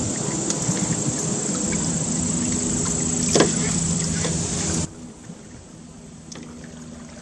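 Small gasoline engine idling steadily with a low hum. It cuts off abruptly about five seconds in, leaving a much quieter background.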